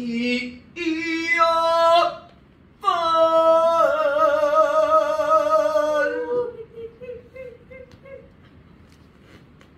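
Unaccompanied Chinese opera singing: one voice sings two long phrases, the second a note held for about three seconds with a wide wavering vibrato, then fades out past the middle.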